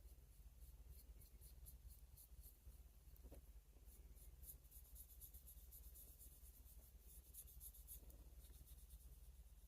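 Faint, rhythmic scratching strokes, about two to three a second, of hand rubbing or abrading work on a pocket knife, over a steady low hum.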